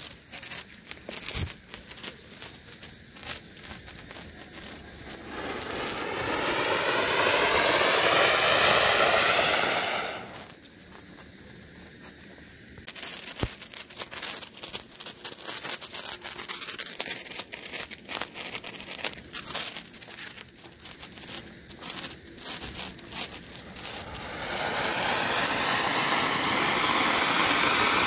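Colour koti cone fountain fireworks burning: sputtering and crackling as one catches, then a loud steady rushing hiss of sparks that cuts off about ten seconds in. After a short lull comes a stretch of scattered crackling, then a second fountain builds to the same loud hiss near the end.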